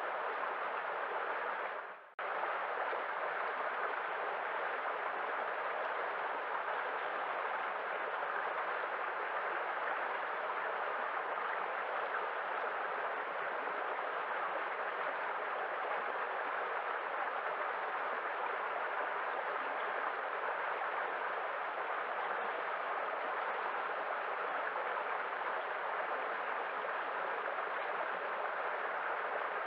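Steady rushing of a waterfall, even and continuous. About two seconds in it briefly fades out and cuts straight back in.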